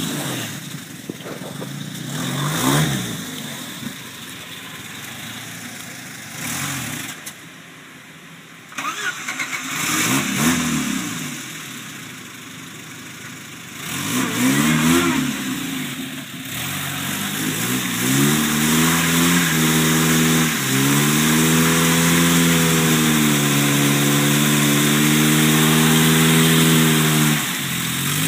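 Jeep Wrangler YJ engine revving in several short bursts that rise and fall. It is then held at high revs for about ten seconds while the tyres spin and churn through deep swamp mud and water, and the revs drop off near the end.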